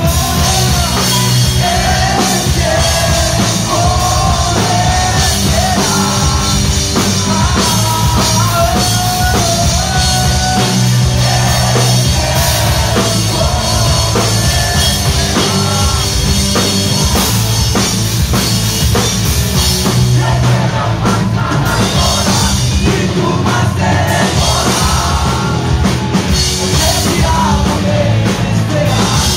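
Pop-punk band playing live, with electric guitar, bass guitar and drum kit under a male lead singer's vocals.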